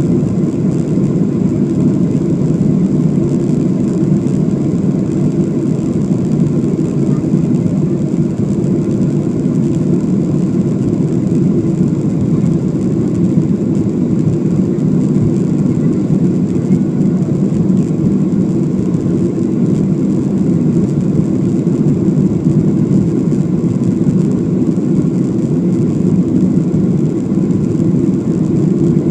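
Airliner cabin noise: a steady, even rumble of the jet engines and airflow, with a faint high whine above it.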